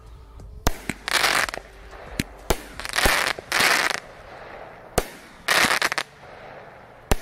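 A 16-shot, 200-gram consumer fireworks cake firing: about seven sharp reports at uneven intervals as shells launch and break, several followed by a brief rushing hiss.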